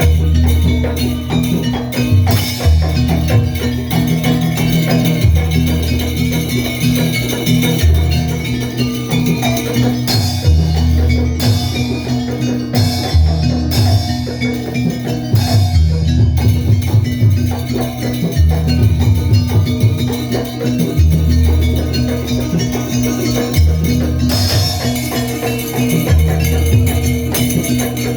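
Live Banyuwangi kluncing-style ensemble music: dense, busy percussion with metallic jingling over a deep bass pattern that repeats about every two and a half seconds.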